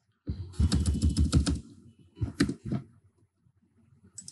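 Computer keyboard typing: a quick run of keystrokes for about a second and a half, then a few separate clicks.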